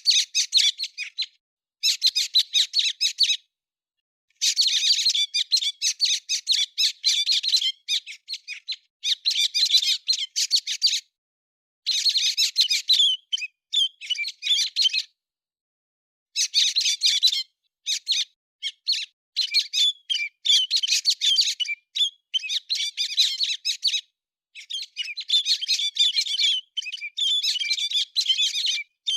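Héc xoan bird chirping in fast, dense bouts of high squeaky notes, each bout lasting a couple of seconds, with abrupt silent gaps between them.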